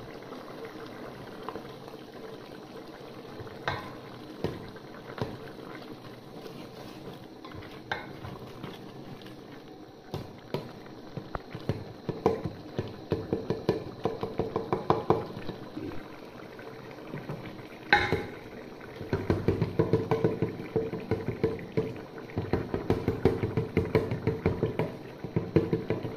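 Rapid, rhythmic knocking from cooking work, several strokes a second, starting about twelve seconds in, with a single sharp knock near eighteen seconds and then a longer run of quick strokes.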